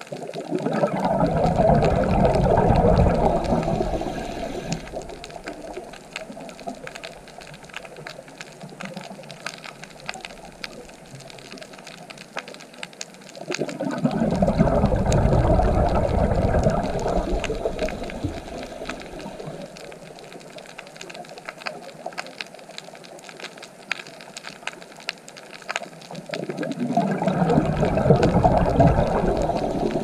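Underwater water noise: a low rushing, bubbling swell that comes three times, about 13 seconds apart, each rising quickly and fading over a few seconds. A constant fine crackling continues underneath.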